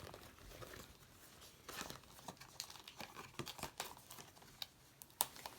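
Packaging of an Apple Watch strap rustling and crinkling as it is handled, in many short, faint strokes, with one sharp click near the end.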